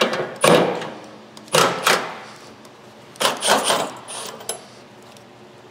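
Cordless drill/driver running in three short bursts, backing out the trunk-lid hinge bolts.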